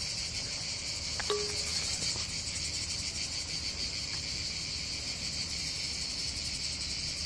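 Cicadas chirring in a dense, steady, high-pitched chorus.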